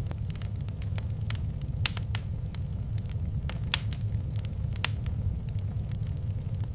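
Wood fire in a fireplace crackling: irregular sharp pops and snaps, a few louder than the rest, over a steady low rumble.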